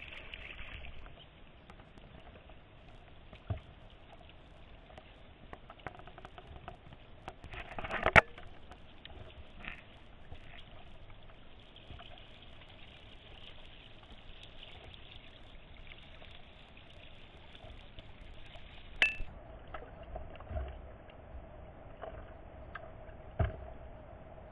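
Soft water trickling and lapping, with a few sharp knocks, the loudest about eight seconds in.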